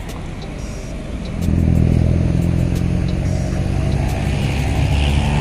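Road traffic passing close by: a motor vehicle's engine comes in about a second and a half in and runs steadily and loudly, with tyre hiss swelling near the end as it passes.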